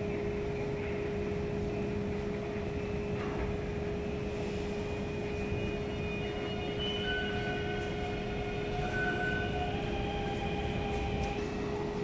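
Underground metro station ambience: a steady low rumble of a train moving through the station, under a constant hum. Thin whining tones come and go in the second half.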